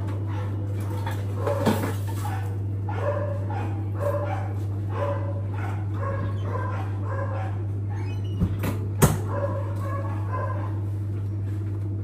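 A dog barking at intervals, about once a second, over a steady low hum, with two sharp knocks about three-quarters of the way through.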